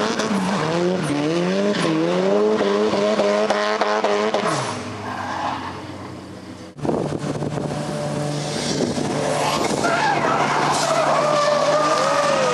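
Drift car engine revving under hard throttle, its pitch rising and falling as the car slides, dying away after about four and a half seconds. After a sudden break, another drift car's engine holds steady revs while its rear tyres squeal in a wavering tone through the last few seconds.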